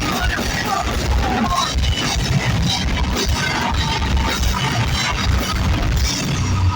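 Heavy metal band playing live: distorted guitars and a pounding drum kit, heard loud through a concert recording.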